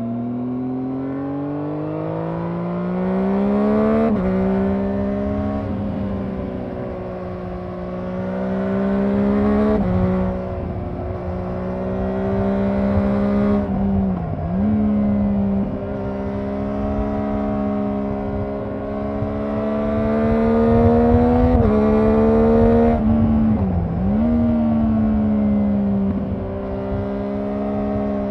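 Triumph Daytona 675R's inline three-cylinder engine, heard from on board while riding, pulling up through the revs and dropping sharply in pitch at each gear change, several times, with wind rush underneath.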